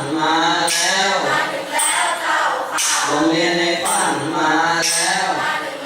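A group of voices singing a Thai boat-song chant (he ruea) together, in short phrases about a second long.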